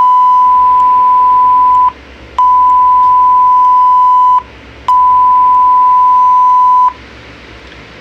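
Broadcast emergency alert tone: three long, steady beeps of one pitch, each about two seconds, separated by short gaps. It introduces a National Weather Service severe thunderstorm warning.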